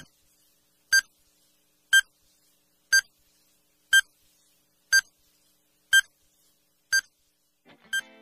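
Countdown timer sound effect: a short, high electronic beep once a second, about nine times, ticking off the seconds of a countdown.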